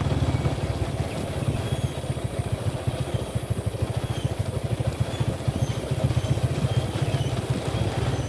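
Honda Tiger motorcycle's single-cylinder four-stroke engine running at low revs while riding, a steady low exhaust beat that eases slightly and picks up again toward the end.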